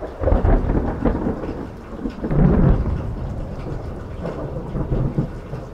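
Thunder from a close lightning strike, a deep rolling rumble that swells loudest about half a second in and again around two and a half seconds in, then fades.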